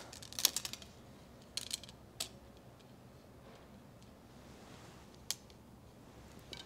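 Faint clicks and rattles of archery gear being handled: a compound bow, an arrow and a wrist-strap trigger release. There is a quick cluster of clicks about half a second in, a couple more around two seconds, and one sharp click about five seconds in.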